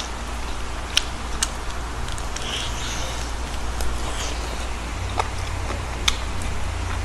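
Mouth biting and chewing crispy fried chicken, with a few sharp crunches and wet mouth clicks, over a steady low background hum.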